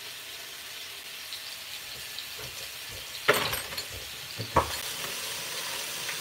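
Raw chicken breasts sizzling in hot olive oil in a square copper skillet, a steady frying hiss. Two sharp knocks come about a second and a half apart midway through.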